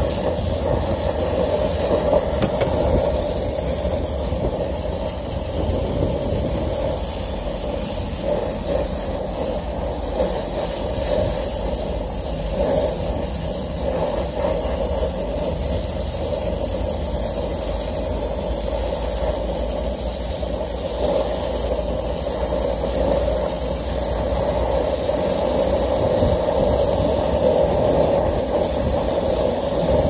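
Brazing torch flame burning steadily against a condenser coil joint, a continuous even rushing noise with hiss, as the joint is heated to braze a refrigerant leak.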